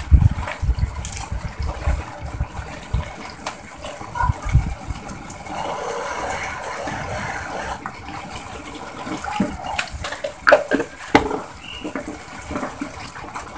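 A watery rice-and-lentil mixture for khichuri cooking in a marble-coated pot, with liquid bubbling and sloshing. Scattered knocks and clicks come through as whole spices are dropped in and the pot and spatula are handled, with a cluster of clicks near the end.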